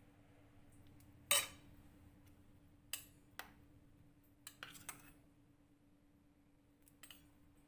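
A metal ladle clinking against a steel pot of curry: a few scattered sharp clinks, the loudest about a second and a half in and a quick cluster around five seconds, over a faint steady hum.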